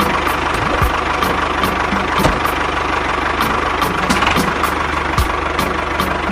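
A mini DIY tractor's engine-like running sound, steady, with a regular knock about three times a second.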